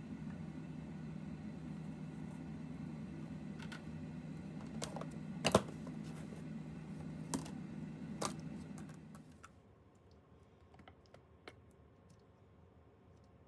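A steady low machine hum with a handful of sharp clicks and knocks over it; the hum stops about nine seconds in, leaving only faint, scattered clicks.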